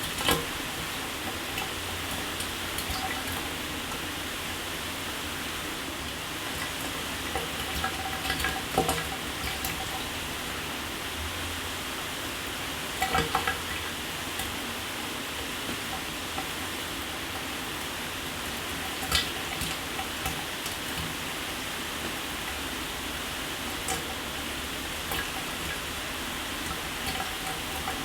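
Shower water running steadily, the spray hissing onto a hard surface, with a few brief louder splashes about 8, 13 and 19 seconds in.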